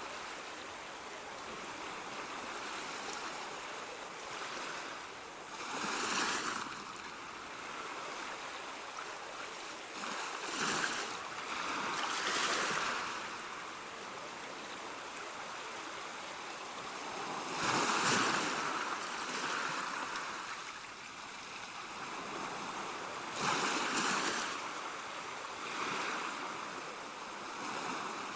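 Ocean waves breaking and washing on a shore, a steady hiss of surf that swells every five or six seconds as each wave breaks.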